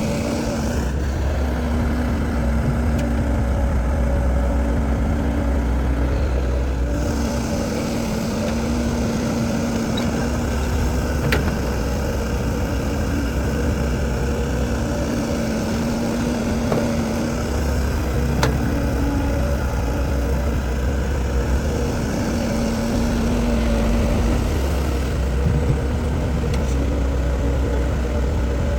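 Heavy diesel construction machinery running, a steady engine note with a deep rumble that swells and drops every few seconds as the load changes, and a couple of sharp metallic clicks.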